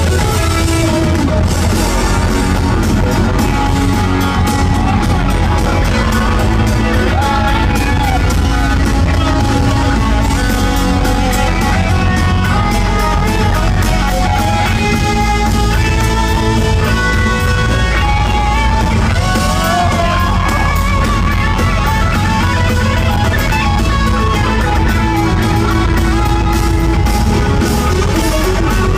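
Live rock band playing loud through a venue PA, heard from the audience floor: electric guitar lines over bass and a steady drum beat.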